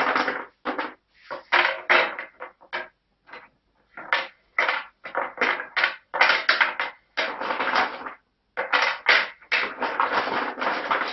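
Wooden Tetris pieces being handled: a quick, irregular run of short wooden knocks, clacks and scrapes.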